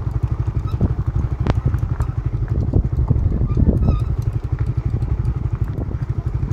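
Motorcycle engine running, with a fast low pulsing, heard from on board while riding.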